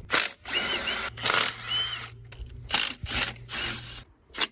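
Cordless power tool with a 13 mm socket running in about five short bursts with a whine, spinning out the ignition coil mounting bolts.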